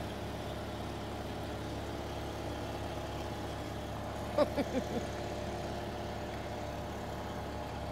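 An engine running steadily at idle, a constant hum with a few short voice sounds about halfway through.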